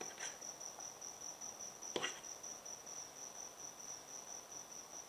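A metal spoon knocks once against a wooden bowl of beaten egg about two seconds in, over a faint, steady high-pitched trill.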